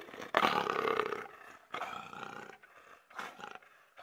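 Big cat roar sound effect, a lion or tiger type roar, repeating several times and growing fainter each time as it dies away.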